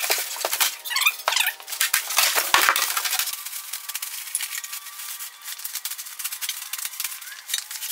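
Plastic wrap crinkling and crackling as it is pulled and bunched off a new bandsaw: a dense run of crinkles, busiest in the first few seconds and then steadier.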